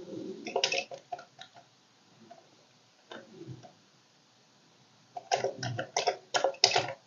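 Keys being pressed on a Commodore computer keyboard: scattered clicks in the first second and a half and again around three seconds in, then a quick run of keystrokes near the end.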